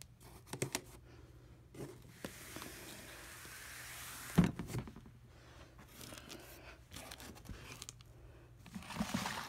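Rustling and scraping handling noises: a long hissing rustle, then a loud knock, and another rustle near the end.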